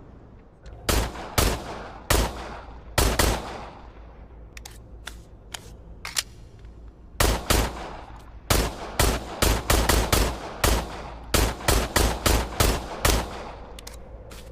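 A .45 pistol firing: a handful of shots, each with a ringing tail, then a pause with a few short faint clicks, then a fast string of about sixteen shots in quick succession.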